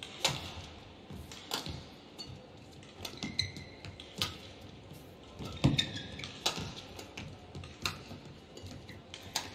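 Badminton rally: sharp racket strikes on the shuttlecock, one about every second, with a few short high squeaks of court shoes on the mat.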